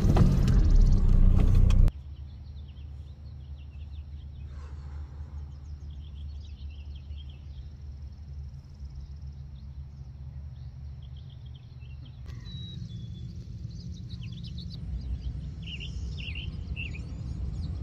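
Car cabin noise while driving slowly, cutting off sharply about two seconds in. After that, small birds chirp on and off over a low steady rumble, with more chirps near the end.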